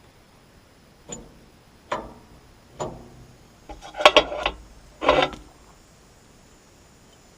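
Small steel parts of a sawmill's sprocket and spindle assembly clinking and knocking as they are handled and fitted, in a handful of separate knocks, with a longer rattle about four seconds in.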